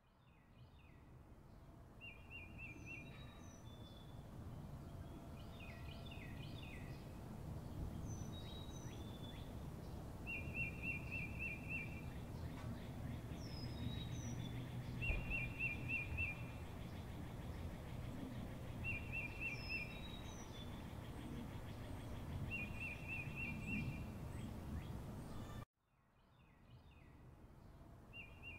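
Outdoor nature ambience of birds calling: short rapid trills about a second long repeat every few seconds among scattered high chirps, over a low steady rumble. Near the end the sound cuts out suddenly, then fades back in.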